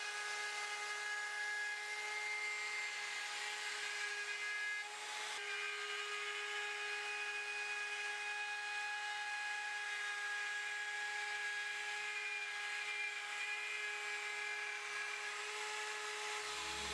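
Bosch plunge router running with a steady high-pitched whine as it cuts through a wooden slab on a circle-cutting jig, removing the center. The pitch steps up slightly after a brief dip about five seconds in.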